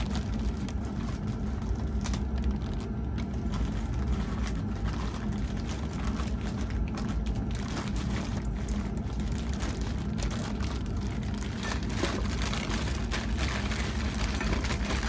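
Plastic wrapping crinkling and rustling in irregular crackles as it is pulled off a fan part, over a steady low hum.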